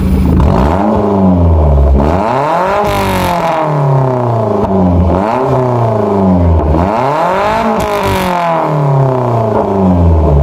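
Maruti Suzuki Zen engine through a modified aftermarket exhaust, revved up from idle and let fall back several times, then settling to idle near the end.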